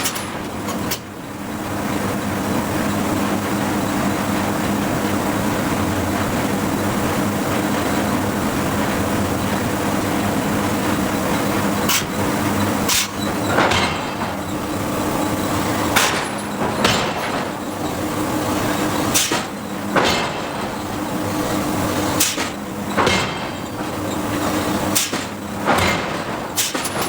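Hydraulic forging hammer striking hot steel: about a dozen sharp blows, mostly in the second half, often in pairs about a second apart, over a steady hum of shop machinery.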